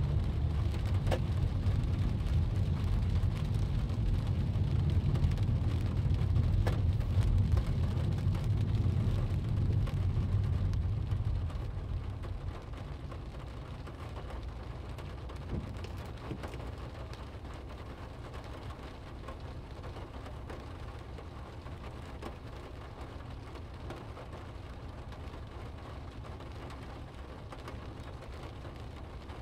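Rain on a car's windscreen and body heard from inside the car, over a loud low rumble of the moving car. About twelve seconds in, the rumble drops away, leaving the steady hiss of rain and a quieter low hum.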